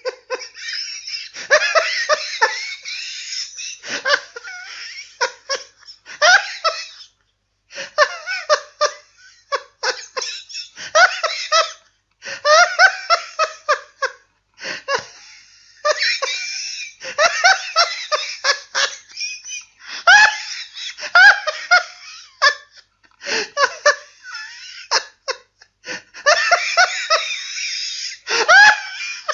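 A man laughing hard in an uncontrollable fit: runs of quick pitched ha-ha bursts broken by short gasping pauses.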